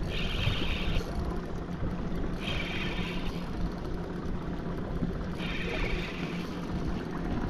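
Spinning reel whirring in bursts of about a second, roughly every two and a half seconds, as a hard-pulling hooked fish is fought on rod and reel. A low steady hum and wind-and-water noise sit underneath.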